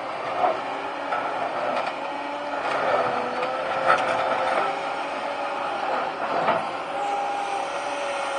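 Liebherr 944 excavator working: its engine and hydraulics run with a steady whine, broken by several sharp knocks, the loudest about four seconds in.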